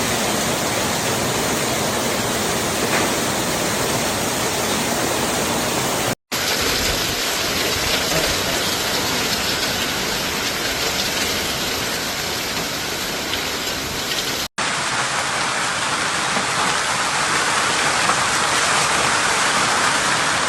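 Hailstorm: hail and rain pelting down on roofs and surfaces in a dense, steady hiss, with two brief dropouts where the clips change.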